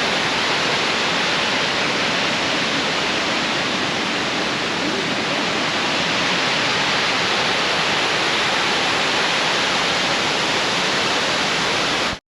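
Large waterfall, a loud steady rush of falling water. It cuts off suddenly near the end.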